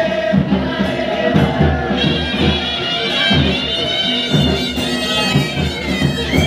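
Procession music: drums beating with shrill, sustained wind instruments that come in strongly about two seconds in.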